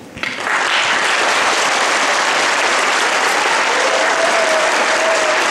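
Audience applauding. The clapping breaks out suddenly a fraction of a second in and holds steady and dense.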